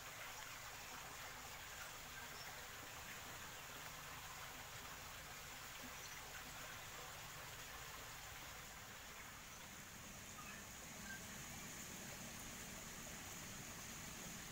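Faint steady trickle of a shallow creek running over rocks, with a few faint bird chirps now and then.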